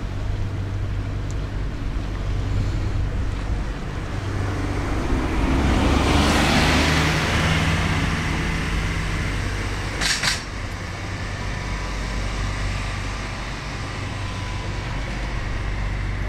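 A steady low engine hum, with a road vehicle passing close by: its noise swells for a few seconds about halfway through and then fades. A short, sharp noise about two-thirds of the way in.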